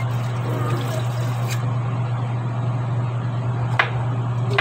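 Kitchen knife slicing bottle gourd (upo) on a wooden cutting board, a couple of sharp taps as the blade hits the board, about midway and near the end, over a steady low hum.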